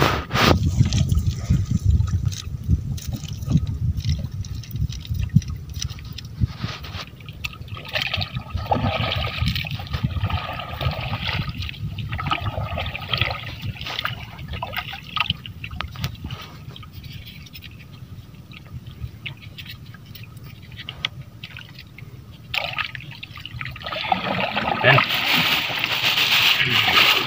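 Water splashing and trickling around a small boat, over a steady low rumble. The splashing grows louder in a stretch around the middle and again near the end.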